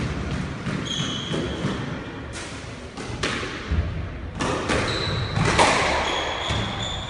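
Squash rally: the ball cracks off rackets and the walls in sharp hits about once a second from about two seconds in, with a few short high squeaks of court shoes on the wooden floor.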